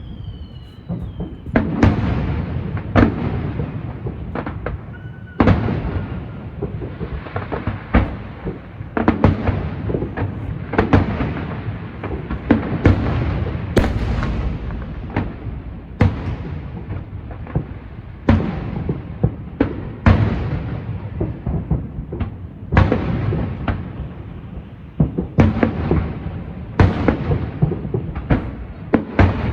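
Aerial fireworks shells bursting in quick succession: sharp booms about once or twice a second, each trailing off in a rolling rumble, with a faint falling whistle near the start.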